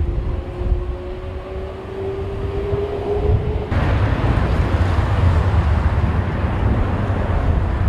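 Airbus A350-900 jet, its Rolls-Royce Trent XWB engines at takeoff power: a rising whine, then, about four seconds in, an abrupt change to a loud, broad jet roar with deep rumble.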